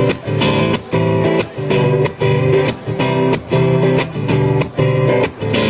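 Guitar strummed in a steady rhythm, chord after chord, in an instrumental passage of a song without singing.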